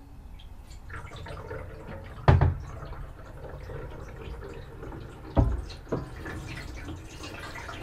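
Water running down a newly connected plastic sink waste pipe and trap during a leak test. A steady wash of water sound, broken by sharp knocks about two and a half and five and a half seconds in.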